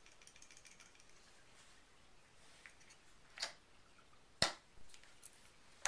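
Soap-making utensils and containers handled on a wooden table: a few sharp clicks and knocks against quiet room tone. Two come about a second apart, three and a half and four and a half seconds in, the second the sharpest, and another comes at the very end.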